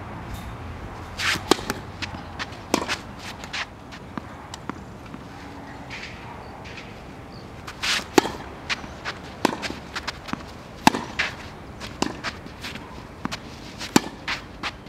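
Tennis ball being bounced and struck with a racket on serves and in a rally: a series of sharp pops and knocks, the loudest about a second in, near the middle, and near the end, with footsteps on the court in between.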